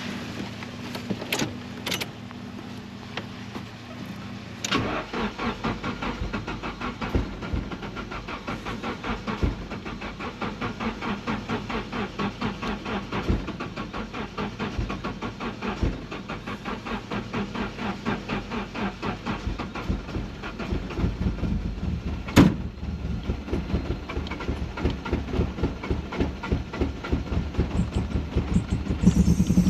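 Nissan 240SX four-cylinder engine being cranked by its starter for a long stretch, turning over in an even rhythm of about four pulses a second without firing, after a few sharp clicks at the start. This is a hard start on a car with a no-start problem. Near the end the engine begins to catch.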